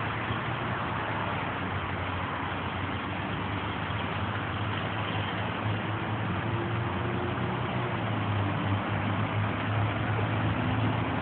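Steady outdoor background noise: an even hiss over a constant low rumble, with no single event standing out.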